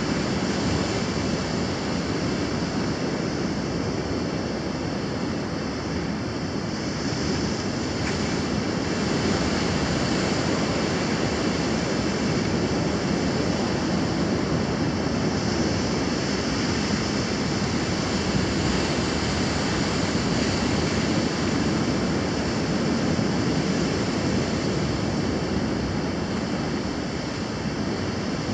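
Ocean surf breaking and washing over lava rocks, a continuous rush of churning water with no pauses.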